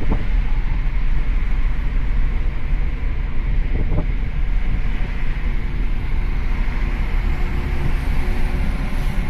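Steady low rumble of a running vehicle, with two faint knocks about four seconds apart.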